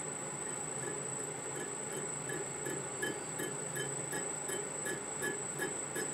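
Small metal lathe running slowly, spinning a model-engine crankshaft held offset in a crankpin-turning fixture, with a steady high whine and a running hum. A light tick repeats about three times a second, starting about a second in.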